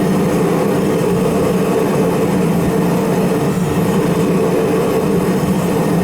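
Propane forge burner running with a steady, loud roar while a blade heats to quenching temperature.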